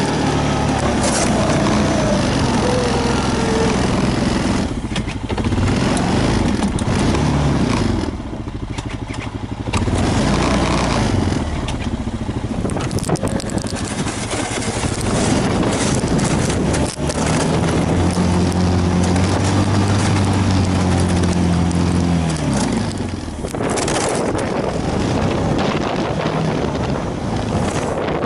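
An engine running, its pitch rising and falling several times as it speeds up and slows down, over rough scraping noise.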